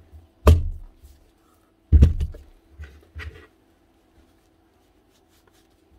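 Parts of an old Makita impact wrench being fitted back together by hand: two sharp knocks about a second and a half apart, then a couple of lighter taps, as the greased gear housing is worked onto its gear.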